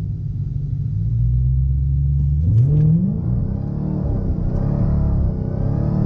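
Supercharged 6.2-litre V8 of a 2016 Dodge Challenger Hellcat, heard from inside the cabin on a 0-60 mph run: engine held at a steady speed, then about two and a half seconds in the revs climb fast as it launches and pulls hard at full throttle.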